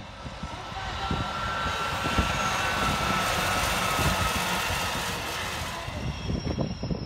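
Northern diesel multiple-unit train passing close by: a rushing rumble that builds, peaks over a few seconds with a faint high whine, and fades as it moves away.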